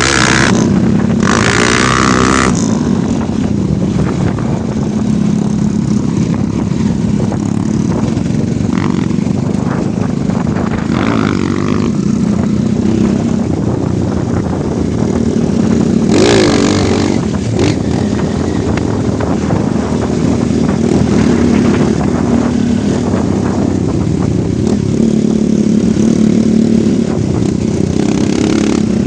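Off-road motorcycle engine running continuously while riding a trail, its pitch rising and falling with the throttle. A brief rushing noise comes twice, near the start and about halfway through.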